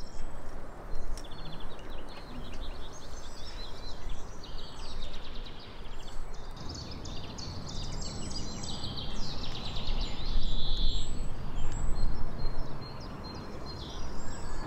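Small songbirds chirping and trilling again and again, over a steady low background noise.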